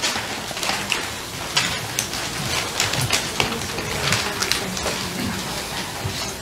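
Papers rustling and pages being turned at a meeting table, a patter of many small ticks and crackles.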